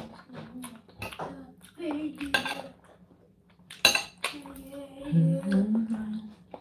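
Steel knife and fork clinking and scraping on a ceramic plate as food is cut, with a sharp clink about four seconds in. A short hummed vocal sound comes near the end.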